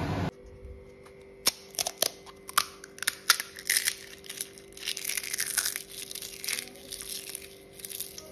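Crisp fried puri shells crushed by hand into a steel bowl of mashed potato filling. First come scattered sharp cracks, then a denser crackle of crumbling shell in the middle.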